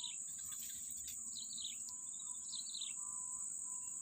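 A steady, high-pitched insect drone from the swamp, with a bird calling twice in short falling phrases.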